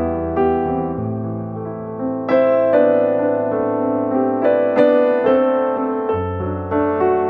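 Background music: a gentle piano melody over sustained bass notes, with new notes struck every half second or so.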